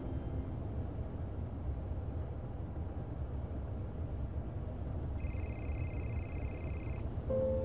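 Steady low rumble of a car driving, heard inside the cabin. About five seconds in, a smartphone on the seat rings with a high electronic ringtone that stops after about two seconds.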